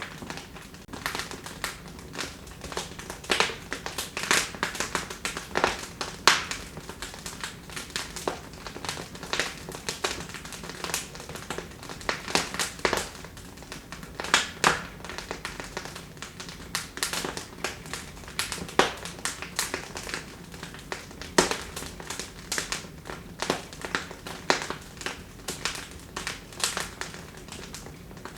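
Wood fire in an open fireplace crackling and popping: a steady stream of irregular sharp snaps, some louder pops every second or two, over a soft hiss of the burning logs.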